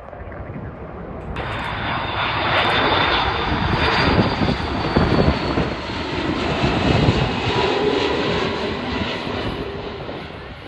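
Jet airliner's engines passing close by: a loud rumble with a high whine that builds over the first few seconds, holds, then eases off near the end, the whine sinking slightly in pitch.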